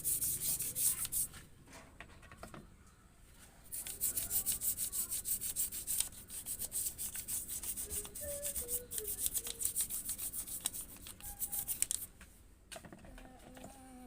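Quick, evenly repeated scrubbing strokes over a car's engine bay during cleaning, pausing about a second in, resuming, and stopping near the end.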